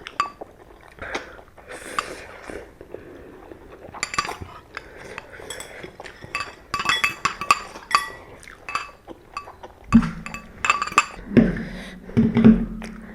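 Eating utensils clinking and tapping against bowls and noodle containers in a quick scatter of small ringing clicks. About ten seconds in, background music with a low, pulsing bass beat comes in.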